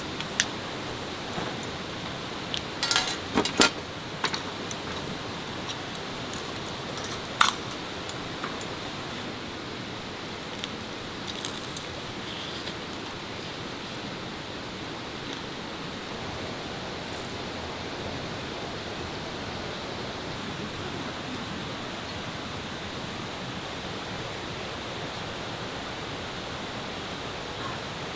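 Steady rainfall making an even hiss. A few sharp clicks and taps stand out about three to four seconds in and again a little past seven seconds.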